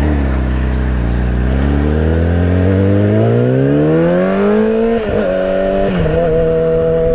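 Yamaha YZF-R6 inline-four engine accelerating under the rider, its pitch rising steadily for about five seconds. Near the end it shifts up with a brief break and a small drop in pitch, then settles to a steady cruise.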